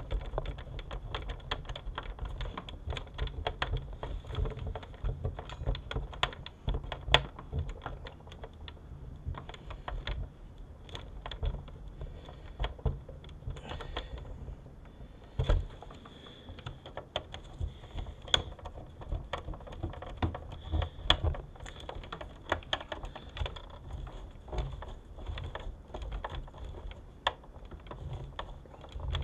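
Small screwdriver turning screws into the sheet-metal case of a car video entertainment unit: a run of irregular light clicks and taps of metal on metal, with a few louder knocks.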